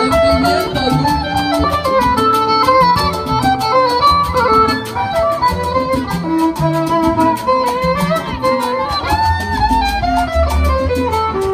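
Live Latin dance band playing: a stepping lead melody over steady, rapid percussion and a bass line.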